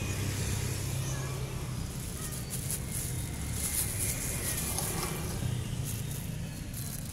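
Faint calls from a cat during a territorial standoff between two cats, over a steady low hum.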